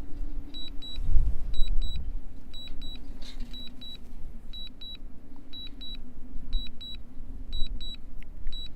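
Strong wind buffeting the microphone in gusts, loudest about a second in, over a steady low hum. A double beep repeats about once a second, typical of a DJI drone remote controller's warning alert in strong wind.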